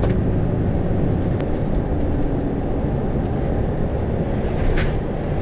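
Lorry's diesel engine running at low speed, heard from inside the cab as a steady low hum.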